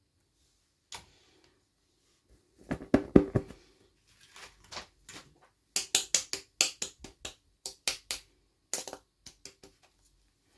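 Small plastic toy pieces and packaging being handled: a cluster of sharp knocks, then a quick run of crisp clicks and taps.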